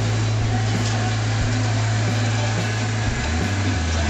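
A small engine running steadily at idle, a strong low hum that wavers and dips in pitch for about a second around three seconds in.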